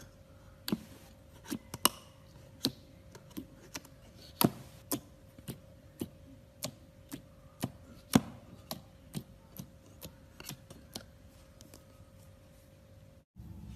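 Crisp, irregular clicks and pops, roughly two a second and varying in strength, from slime being handled in a plastic slime palette, over a faint steady hum.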